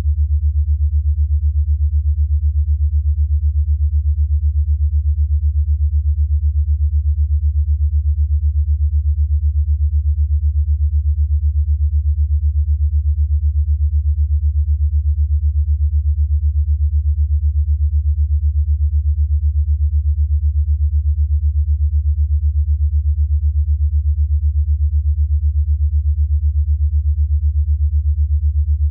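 Deep, steady electronic sine tone pulsing rapidly and evenly: an 8 Hz alpha-wave beat tone for brainwave entrainment.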